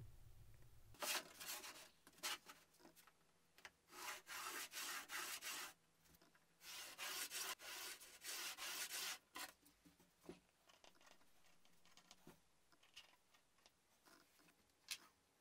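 Long rubbing strokes across a plywood sheet: several passes of one to two and a half seconds each, then a few faint ticks and a single click near the end.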